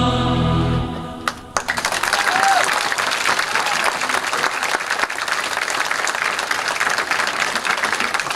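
Recorded stage music ends about a second in. After a couple of isolated claps, audience applause breaks out and carries on steadily.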